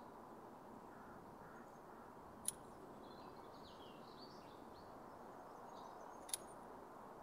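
Two short, sharp snips of garden secateurs cutting rose stems, about four seconds apart, over faint birdsong and quiet outdoor ambience.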